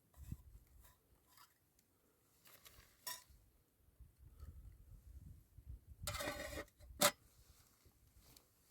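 Camp cookware being handled: light clinks and scrapes of a pot and utensils, with a short scrape about six seconds in followed by the loudest, sharp clink.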